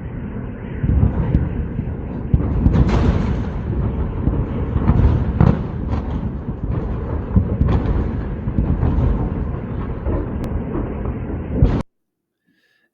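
Shelling heard from within a city: many shell explosions going off in quick succession over a continuous rumble. The sound cuts off abruptly near the end.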